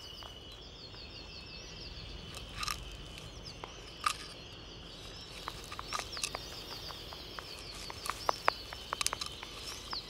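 Scattered sharp clicks and cracks of a hatching Laysan albatross egg's shell, in small groups, over a steady low rumble, with a rapid high chirping trill in the background.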